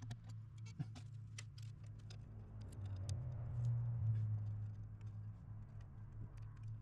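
Scattered light clicks and taps of hand work, fitting a horn mounting bolt held on a piece of wire, over a steady low hum. The hum swells for a second or two in the middle.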